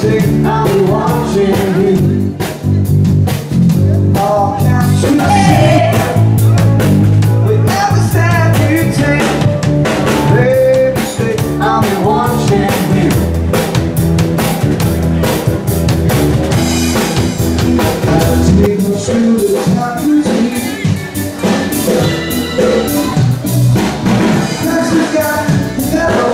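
Live band playing a song: a singer over bass guitar, keyboard and drum kit.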